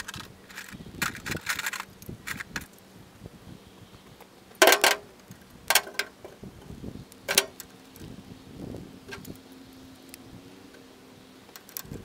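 Metal hand tools (a ratchet and sockets) clinking and clanking against the baler's steel frame. There is a loud ringing metallic clank about four and a half seconds in, and sharper clinks about one and three seconds after it.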